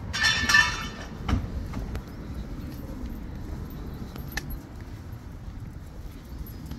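A brief metallic jingle in the first second, then a single knock a little after one second, over a low steady outdoor background with faint scattered ticks.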